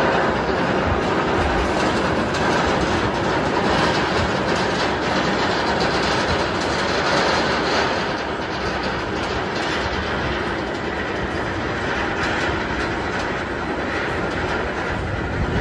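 Nitro's Bolliger & Mabillard hyper coaster train climbing the chain lift hill: the lift chain running under the train with a steady mechanical clatter of clicks.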